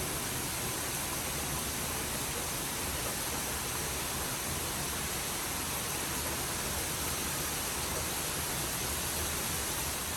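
Steady rainfall, an even hiss with no single drops standing out.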